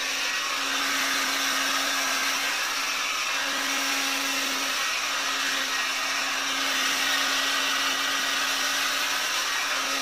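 Rotating hot air brush (hair-dryer brush) running steadily: the rush of blown air with a constant motor hum.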